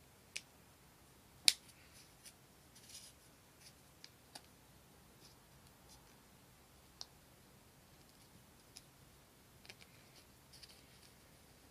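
Fingers prising at the lid of a clear plastic deli cup: scattered clicks and light scratching of the plastic, with one sharper click about a second and a half in.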